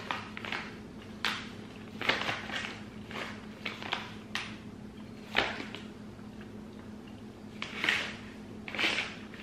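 Plastic candy pouch and a caramel's paper wrapper crinkling and rustling as they are handled, in a dozen or so short, irregular crackles. A steady low hum runs underneath.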